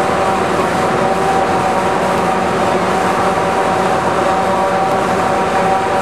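John Deere 7350 self-propelled forage harvester with a 676 corn head chopping corn silage under load. It runs loudly and steadily, with a constant high whine over the engine noise, mixed with the tractor pulling the forage wagon alongside.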